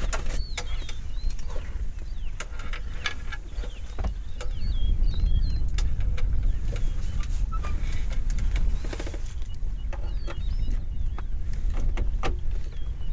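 Lions feeding on a wildebeest carcass: irregular cracks and clicks of tearing and chewing over a steady low rumble.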